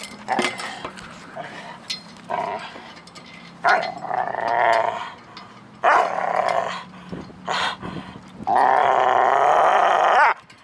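A dog growling in a string of short bursts while it worries at a wheel, with the longest growl near the end.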